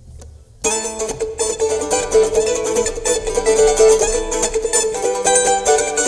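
A bluegrass string band of banjo, mandolin, acoustic guitar and upright bass starts playing about half a second in, with fast, bright plucked notes, instrumental.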